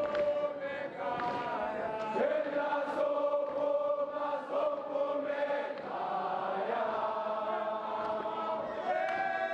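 A large crowd of schoolboys singing a gwijo, a South African school chant-song, together in long held notes, the pitch moving up near the end.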